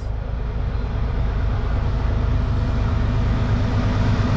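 Approaching diesel freight locomotive, a GE ES44DC with a V12 engine, heard as a steady low engine rumble and hum that grows slowly louder as it nears.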